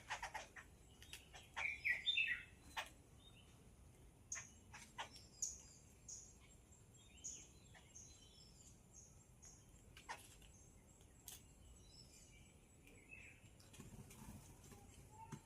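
Yellow-billed babblers calling: a loose series of short chirps and sharp notes, loudest in a cluster about two seconds in.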